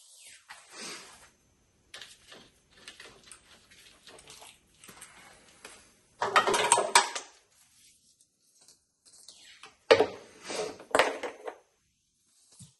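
Hands handling a wiring harness and its plastic connectors: scattered rustling and light clicks, with two louder spells of scraping and rattling, one about midway and one near the end.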